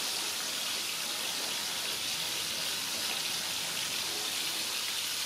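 Steady, rain-like hiss, even in level and strongest in the treble.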